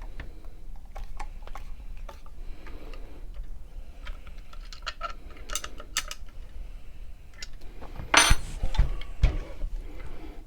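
Metal clinks and clicks of bolts, washers and tools being handled while a reloading press is mounted to its bench plate, then a louder scrape and a few heavy thumps about eight seconds in.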